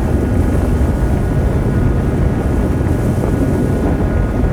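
Sound-designed rumble for a Mars rover landing: a steady, dense low rumble like wind and machinery, with faint steady high tones above it.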